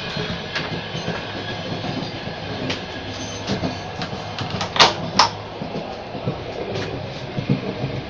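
Steady running noise of a moving passenger train heard from inside a carriage, with scattered clicks and two sharp knocks close together about five seconds in.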